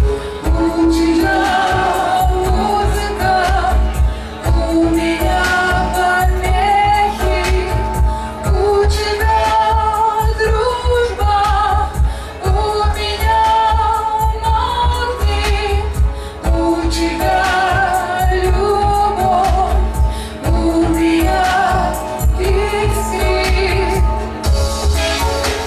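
A woman singing live through a PA, her held notes wavering in pitch, over backing music with heavy deep bass.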